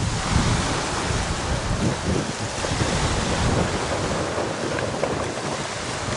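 Strong wind blowing across the microphone in uneven low gusts, over a steady rush of wind and choppy water.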